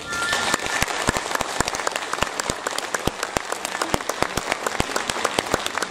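Audience applause breaking out as the singing ends and carrying on steadily, with many single claps standing out.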